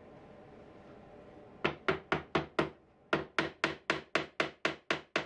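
Small hammer tapping a brass nail into walnut: about four taps a second starting a little under two seconds in, five taps, a short pause, then a second steady run.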